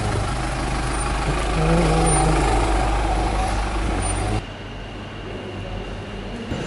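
Road vehicle engines running at a station taxi rank, a steady diesel-like hum with a pitch that wavers as one vehicle revs slightly. About four seconds in it cuts abruptly to a quieter steady hum.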